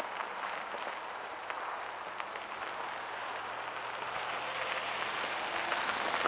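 Tyres of a Haval SUV crunching over a gravel road as it drives up, with small stones clicking under them, growing louder near the end as the car comes close.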